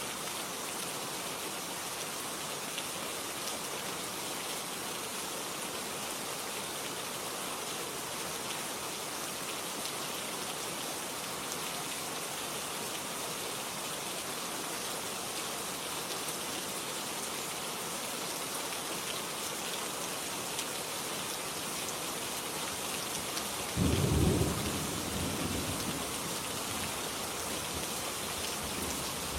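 Steady rain falling, with one sudden low clap of thunder near the end that rumbles away over a couple of seconds.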